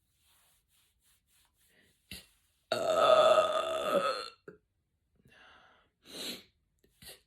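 A woman's long, loud belch of about a second and a half, a little under a third of the way in, its pitch sinking slightly at the end; gas brought up from carbonated sparkling water. A sharp click comes just before it, and a few short, softer sounds follow.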